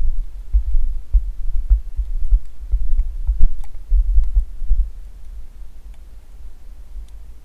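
Low, irregular thumping rumble on the microphone, the kind made by the camera being jostled and buffeted, with a few faint clicks. It dies down after about five seconds.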